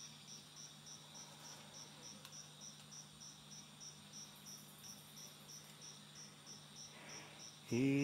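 Insects chirping in an even pulse of about three chirps a second over a faint steady low drone. Near the end a man's voice comes in loudly, holding a low hummed note: the start of an icaro, a shaman's healing chant.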